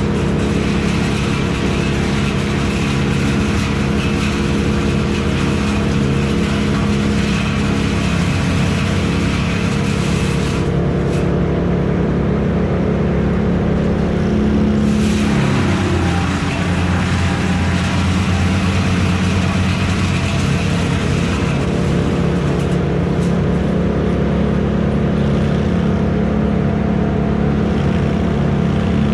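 A heavy engine running steadily. About halfway through its speed drops for a few seconds, then it picks up again.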